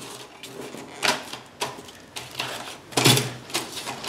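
Hands pressing and sliding sheets of Depron foam together, the foam rubbing and scuffing in a few short, irregular bursts, about a second in and again near three seconds.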